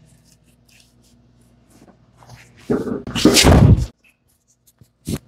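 Sounds of a chiropractic adjustment: a sudden loud rushing burst about a second long, a little under three seconds in, and a single sharp knock near the end.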